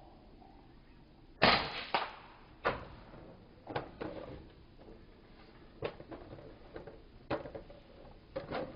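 A sharp shot from an FX Royale pre-charged pneumatic air rifle about a second and a half in, the loudest sound, followed by a string of fainter sharp clicks and knocks at irregular intervals.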